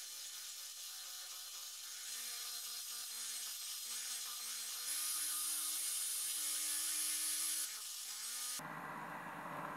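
Electric hand mixer running, its twin beaters whipping thick lingonberry semolina porridge in a glass bowl. The motor whine steps up in pitch twice and drops back shortly before the end, where the sound turns abruptly rougher and noisier.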